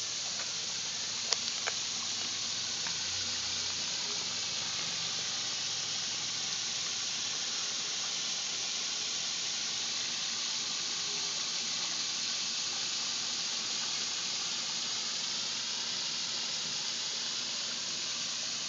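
Newly built backyard pond waterfall, a steady rush of falling water splashing into the koi pond. A few sharp clicks about a second and a half in.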